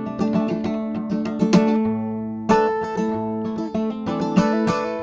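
Acoustic guitar picked fingerstyle with a slide, a run of plucked notes ringing over one another as the instrumental intro to a folk song.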